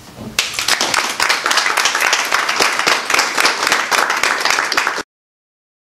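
Small audience applauding, many hands clapping together, starting about half a second in and cutting off abruptly about five seconds in.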